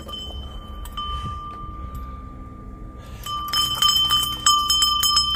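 An old rusty cast-iron dinner bell, rung by hand. One struck note rings on at first. Then from about three seconds in the clapper strikes it rapidly, about five times a second, and the rings overlap into a clanging peal.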